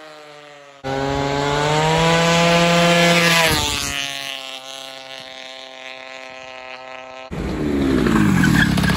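Honda Aero scooter's loud single-cylinder 125cc stroker engine revving hard through its aftermarket exhaust in several passes: about a second in it comes in loud with the pitch climbing under acceleration, drops back and carries on quieter and steady as the scooter rides away, then comes up loud again near the end as it passes close.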